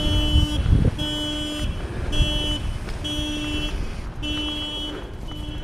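An electronic warning beeper sounding over and over, six evenly spaced beeps of just over half a second each, about one a second, growing gradually fainter, with low wind rumble on the microphone.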